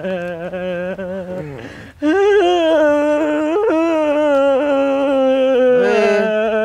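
Loud crying in long, wavering sing-song notes, like a wail, jumping louder about two seconds in and sliding up and down in pitch near the end.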